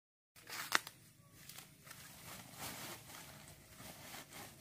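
Faint rustling and crackling of leafy plants being pulled and handled, with a sharp click just under a second in.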